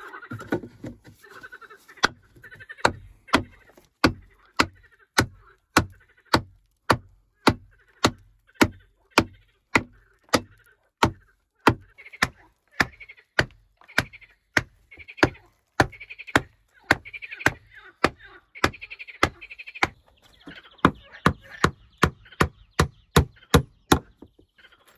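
Hammer striking wooden boards, a steady run of sharp blows about two a second with a couple of brief pauses, as planks are nailed in place.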